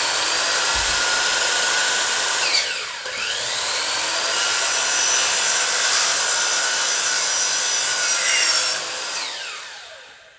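Electric miter saw cutting aluminum screen track: the motor spins up and runs under load, is let off and winds down briefly about two and a half seconds in, then spins up again and runs until it winds down near the end.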